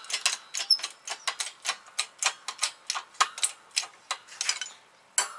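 Hydraulic shop press being pumped by hand as it pushes a new wheel bearing into a steering spindle: rapid, even clicking, about five clicks a second, that dies away near the end and is followed by a single sharp knock.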